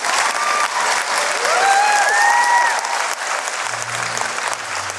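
Wedding guests applauding and cheering, with a few rising whoops over the clapping in the first three seconds.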